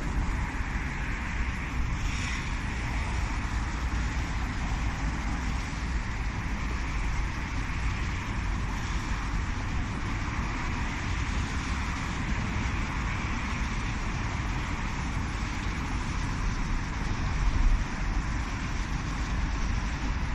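Steady outdoor background noise: a low, fluctuating rumble under an even hiss, of the kind made by wind on the microphone and road traffic. It swells briefly near the end.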